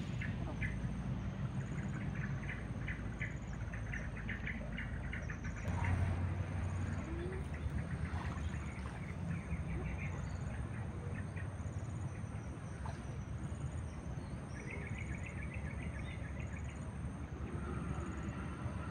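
Birds chirping in repeated quick trains of notes over a steady high insect trill and a low background rumble. There is a brief low thump about six seconds in.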